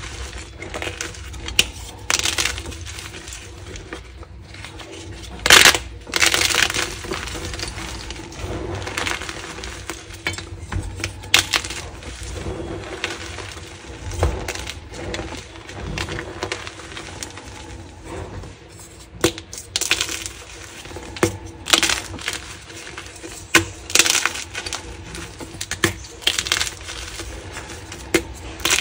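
Gym chalk crumbled and crushed by hand: irregular crunching and crackling of chalk chunks and powder, with sharper, louder crunches scattered through. Near the end a dyed blue chalk block is squeezed and broken up.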